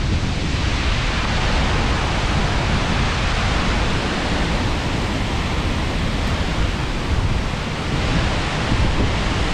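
Skógafoss waterfall's steady rush of falling water at close range, a dense even noise heaviest in the deep low end, with wind and spray buffeting the microphone.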